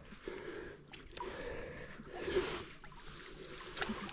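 Small waves sloshing and lapping against the rocks of a breakwater, swelling and easing, with a sharp click about a second in and a few lighter ticks near the end.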